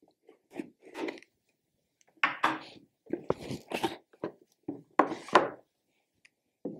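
A cardboard product box being opened and handled: a run of irregular rubbing and scraping sounds with a few light knocks, busiest through the middle.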